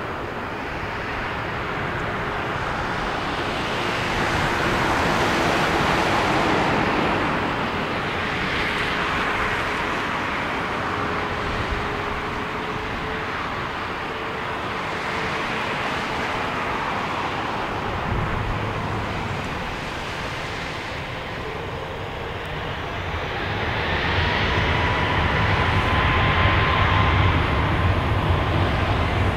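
Boeing 737 MAX 8's CFM LEAP-1B turbofan engines running with a steady whine at low power, then spooling up for takeoff near the end: the whine rises in pitch and a deep rumble builds as the sound grows louder.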